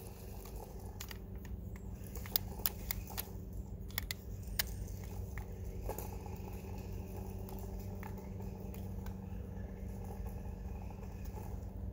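Battery-electric RC monster truck driving off over grass and dry fallen leaves: a steady low motor hum with scattered crackles and clicks, densest in the first few seconds.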